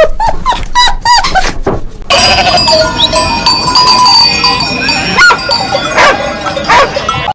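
Animal calls: a quick run of short repeated calls for about two seconds, then a denser mix of calls with some steady high tones, cutting off suddenly at the end.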